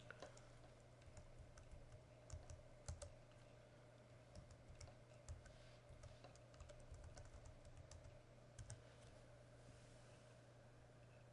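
Faint computer keyboard typing: irregular key clicks that stop about nine seconds in, over a steady low hum.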